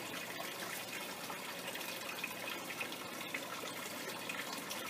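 Water trickling steadily down through a recirculating hydroponic tower of PVC pipes, pumped to the top and running back down past the plant holes.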